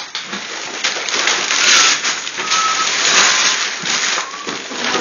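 Gift wrapping paper being torn and crumpled off a large box, an uneven crackling rustle that swells and falls.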